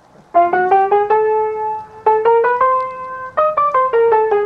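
Background piano music: a slow melody of single notes, some held, starting after a brief pause.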